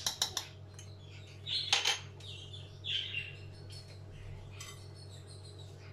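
A spoon clinking and scraping against a bowl and the rim of a cooking pot as the last of the smen is spooned in: a few quick taps at the start and another sharper clink about two seconds in, over a steady low hum.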